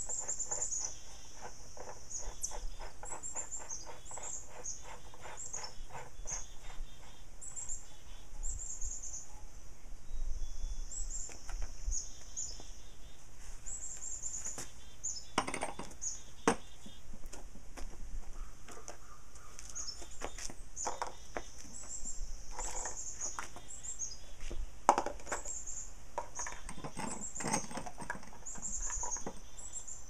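Small birds chirping over and over in short, quick descending notes above a steady high buzz. A few knocks and clunks come in the middle and near the end as the wooden stand and its metal pipe legs are handled.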